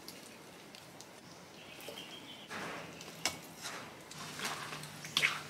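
Broth simmering in a wok as blocks of dry bihon rice noodles are dropped in, with soft clicks and rustles and a bubbling hiss that sets in about halfway through. A brief high bird chirp comes about two seconds in.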